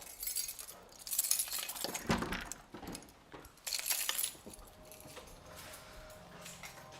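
Light clinking and jangling of small hard objects in three short spells, then a faint background.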